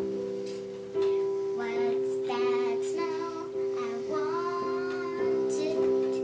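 Digital piano keyboard playing held chords, with a new chord struck about a second in, and a child's singing voice coming in over it about two seconds in.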